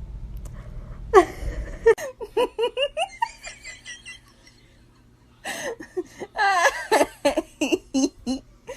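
A person laughing in quick rhythmic bursts, breaking off for a second or so midway and then laughing again.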